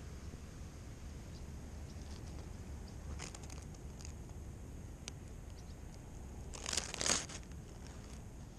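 Wind rumbling on the microphone of a GoPro worn by a cat, with scattered crinkling and crackling over it; the loudest is a short rustling burst about seven seconds in.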